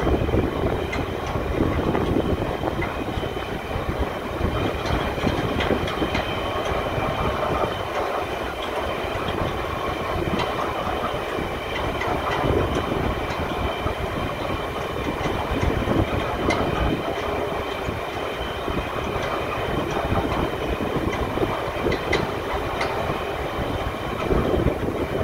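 Steady mechanical rumble with a faint high whine from a movable dam's gate machinery as the gates are lowered into the river, mixed with wind buffeting the microphone.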